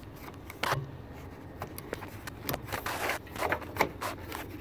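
Irregular light clicks, taps and scrapes of a small plastic plate being handled and pressed down so its snap clips seat. One sharper click comes under a second in, and a quick cluster follows in the second half.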